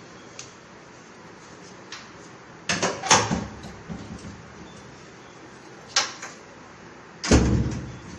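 A door being opened and shut: a rattling knock about three seconds in, a sharp click about six seconds in, and a heavier thud near the end.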